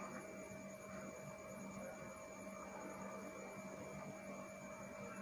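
Faint steady electrical hum over low room noise.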